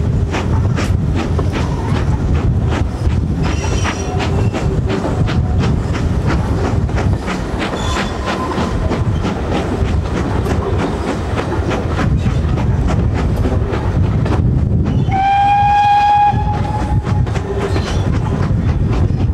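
Steam-hauled train running, heard from an open carriage window, with steady rumble and repeated clicks of the wheels over rail joints. About three-quarters of the way through, the steam locomotive's whistle gives one blast of about a second and a half.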